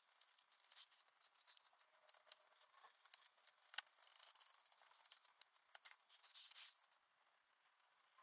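Faint, scattered clicks, taps and light scrapes of a small screwdriver and Mac mini parts being handled during reassembly, with one sharper click a little under four seconds in and a couple of brief rustles.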